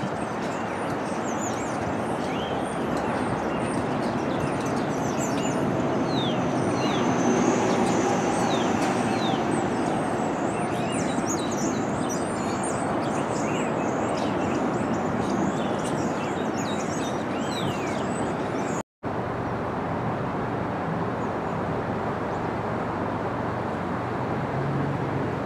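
Steady rumble of a Bombardier R62A subway train pulling away along the elevated track, under a constant hum of city noise, with many short chirps of small birds throughout. The sound drops out for an instant about two-thirds of the way through.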